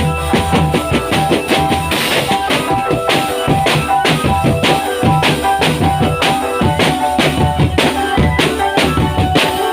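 Drum band music: bass drum and snare strokes keep a fast, steady beat under a line of held melody notes.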